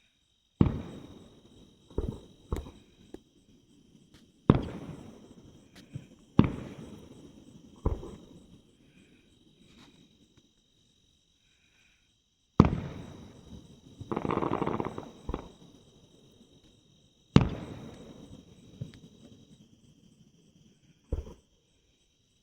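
Aerial fireworks going off: about nine sharp booms, each trailing off in a rolling echo, with a longer crackling burst about two-thirds of the way through. A steady high insect trill runs underneath.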